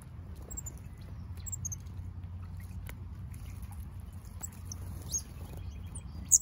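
Small birds giving short, very high chirps at scattered moments, with a louder chirp near the end, over a low steady outdoor rumble. Faint splashing and taps come from birds bathing in shallow terracotta birdbath dishes.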